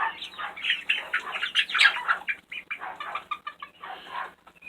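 A flock of young chickens peeping and chirping in many short, overlapping calls, with scattered light taps and rustles. The calls thin out in the second half.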